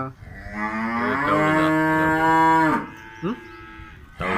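A dairy cow mooing: one long moo that rises in pitch and then holds steady for about two and a half seconds, followed by a brief rising call about three seconds in.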